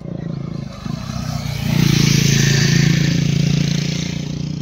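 Motor vehicle passing on the road, engine and tyre noise swelling to a peak about two seconds in and then fading.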